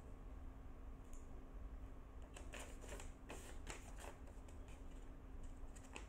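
A sheet of thick paper and a small nail clipper being handled: a cluster of short rustles and light clicks around the middle, with a few fainter ones near the end.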